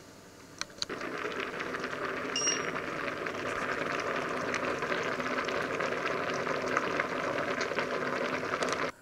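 Large stainless pot of water with spaghetti at a rolling boil: dense bubbling and popping that starts about a second in and cuts off suddenly near the end. A short high electronic beep sounds about two and a half seconds in.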